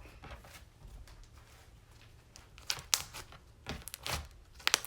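Hands squishing and stretching sticky butter slime, making irregular clicks and pops, with sharper pops about three seconds in and near the end.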